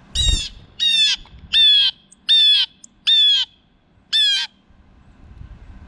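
Blue jay calling six times in a row, each a short call that dips in pitch at its start and then holds level, about one every three-quarters of a second.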